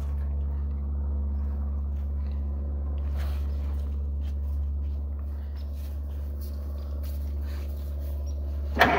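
A steady low hum with a few light clicks. Just before the end, the 1952 Case DC3 tractor's starter suddenly begins cranking the engine, much louder.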